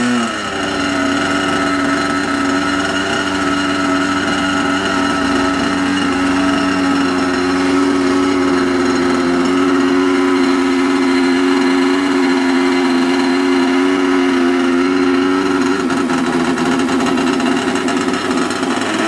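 Small fuel-burning engine of an R/C model Cessna 182 running steadily at high speed, a loud high-pitched drone whose pitch shifts slightly a few times.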